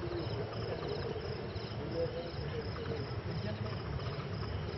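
Crickets chirping steadily, about three chirps a second, over a low steady rumble.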